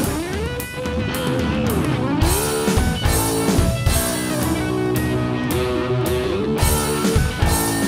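Hard rock instrumental break: a guitar lead line that slides and bends in pitch over bass and a drum kit with regular cymbal hits.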